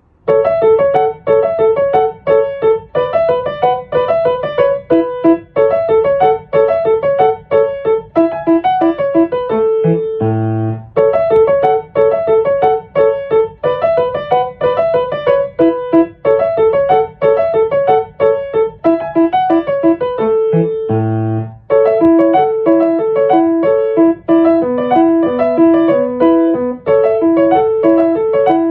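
Background music: a bright electric-piano melody of quick, evenly paced notes, with short pauses about ten and twenty-one seconds in.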